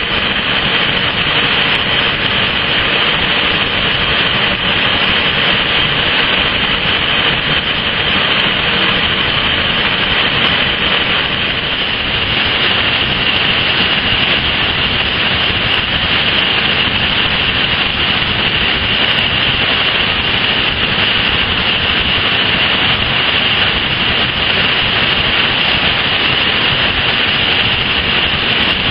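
Steady, unchanging roar of industrial furnace plant, an even rush with a high hiss on top.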